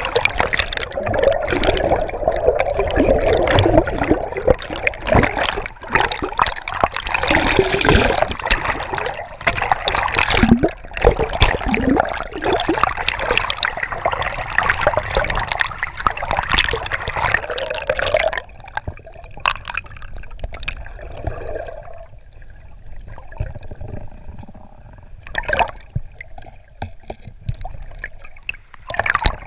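Swift river water rushing and bubbling around a submerged camera, with scattered sharp knocks. About eighteen seconds in it drops to a quieter underwater gurgle.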